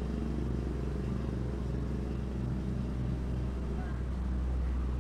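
A steady low rumble with a continuous hum, like a motor or engine running.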